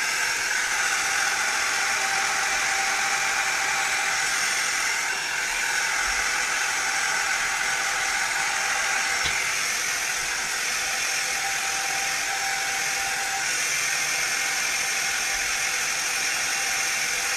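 Handheld hair dryer running steadily on its highest setting, blowing hot air to dry water out of an electric scooter's controller board and wiring.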